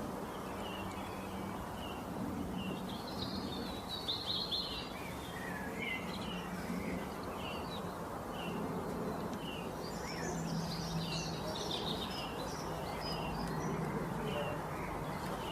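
Wild birds chirping and calling, many short notes throughout, over a steady background hiss of outdoor ambience.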